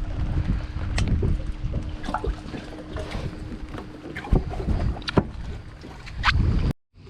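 Wind rumbling on the microphone aboard a fishing boat, with a steady low hum that stops a little past the middle and several sharp knocks. The sound cuts out abruptly near the end.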